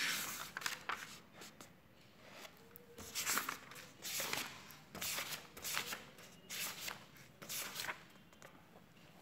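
Faint handling noise: irregular soft rustles and taps, about one or two a second.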